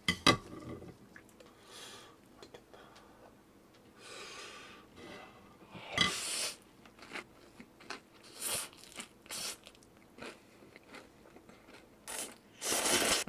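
Crunchy fried food being bitten and chewed: a sharp crunch right at the start, another about six seconds in, a few short crunches after that and a longer run of crunching near the end, with quieter chewing in between.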